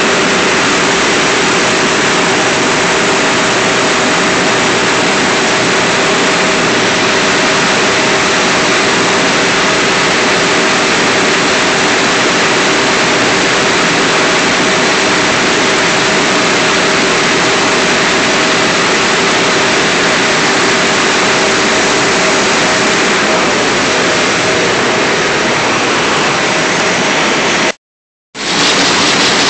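Web-fed printing press running at speed: a steady, loud machine noise with a constant two-tone hum underneath. The sound cuts out for under a second near the end, then resumes.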